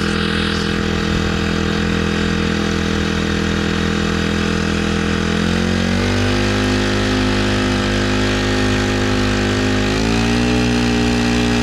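Honda GX35 35cc four-stroke air-cooled engine on a kayak drive leg running steadily, heard right beside the engine. Its revs rise in a step about halfway through and climb again near the end.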